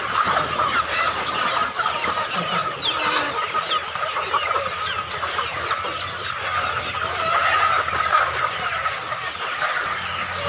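A large flock of Golden Misri hens clucking and calling all at once, a loud, continuous din of many overlapping short calls.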